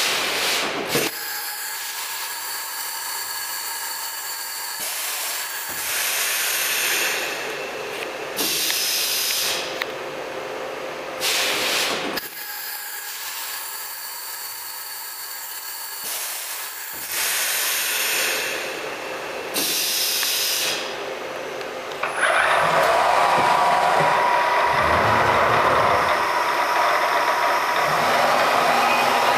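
Lagun 3516 CNC vertical machining center running: a steady hiss with thin whining tones, broken by several louder rushing bursts a second or two long. About three-quarters of the way through it becomes a louder, steady running noise.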